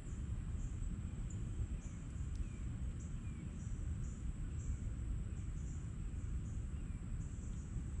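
Insects trilling steadily, a high buzz with repeated pulsed chirps about twice a second, over a steady low rumble, with a few faint short bird chirps.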